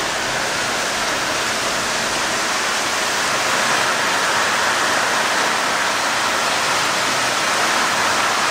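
Torrential rain pouring down in a steady, dense hiss, heard through an open window.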